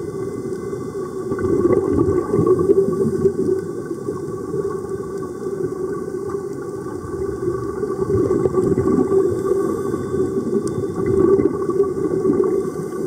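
Muffled underwater sound heard through a camera's waterproof housing: a steady rumble and hiss of the sea, with bubbling from the air-fed sea-walking helmets swelling twice.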